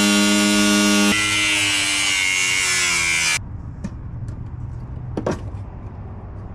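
Cordless angle grinder cutting through the sheet-metal cab floor: a loud motor whine over a harsh cutting hiss, which stops abruptly about three and a half seconds in. A few light knocks and clatter follow as the tool is set down.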